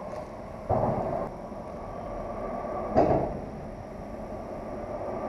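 Traffic on the road bridge overhead: a steady hum, with a sudden thump and rush about a second in and again about three seconds in.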